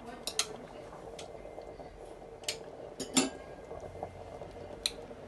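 Metal fork clinking and scraping against a small ceramic bowl as whisked yogurt is scraped out of it: a handful of scattered light clinks, the loudest about three seconds in.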